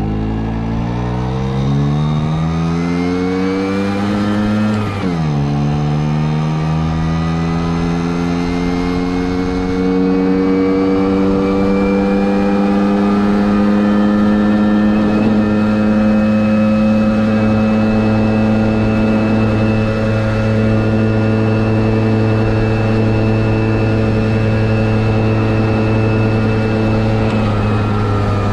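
Vespa V50N's 50 cc two-stroke single-cylinder engine pulling away, its pitch rising for about four seconds, then dropping sharply as it shifts up. It climbs slowly again to a steady cruising pitch, and the revs fall right near the end as the throttle closes.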